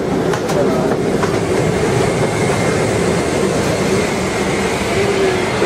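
Steady rushing cabin noise inside a parked Boeing 777-300ER airliner during boarding, with a few light knocks in the first second or so.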